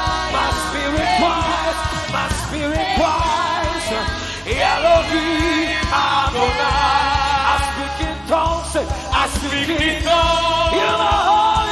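Live gospel worship singing: a lead singer with a group of backing vocalists on microphones, over instrumental accompaniment with a steady bass.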